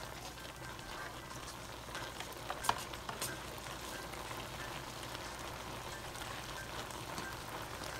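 Goat meat and onions sizzling and bubbling in their own juices in a frying pan, stirred with a spatula, with a few sharp clicks of the spatula against the pan about three seconds in.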